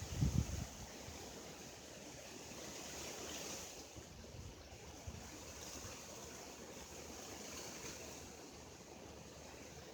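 Wind blowing in a storm: a steady rushing hiss, with a brief low buffeting of the microphone by a gust right at the start.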